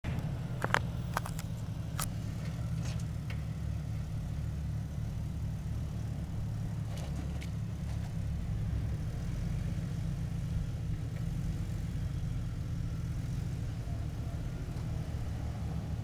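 Jeep engine running at low revs as it crawls up a rock ledge, a steady low rumble. A few sharp clicks come in the first few seconds.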